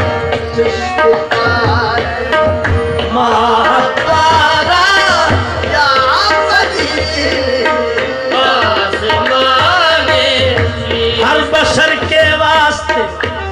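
Qawwali: voices singing a wavering, ornamented melody over steady tabla drumming.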